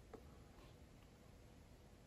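Near silence: faint room tone, with one faint click shortly after the start.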